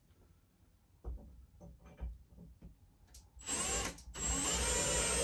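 Power drill with a Torx bit driving a screw through a metal shelf bracket into the wall, the motor whining in two runs from about three and a half seconds in, with a short break between, after a few light handling knocks. The screw bites into a wood stud.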